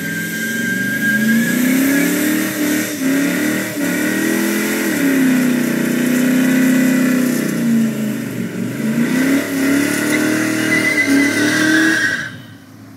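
Holden VN Commodore's 5-litre V8 revving hard through a burnout, the rear tyres squealing as they spin. The revs rise and fall, hold high in the middle, dip and climb again, then the sound cuts off suddenly near the end.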